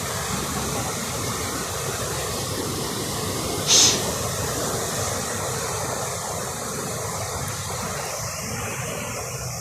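Floodwater of a swollen river rushing steadily, with one short, sharp high-pitched burst a little under four seconds in.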